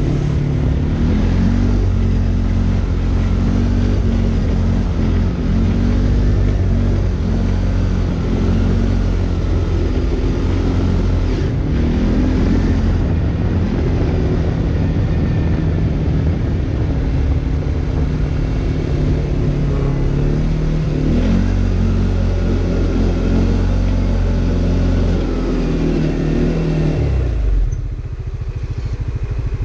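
CFMOTO CForce 450 S quad's single-cylinder engine running under way, its pitch shifting up and down with the throttle. Near the end the engine note drops sharply as the throttle is closed, then picks up again.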